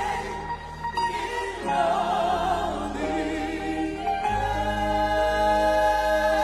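Worship music: sustained, wavering sung voices over keyboard chords and a held bass note, the chord changing about four seconds in.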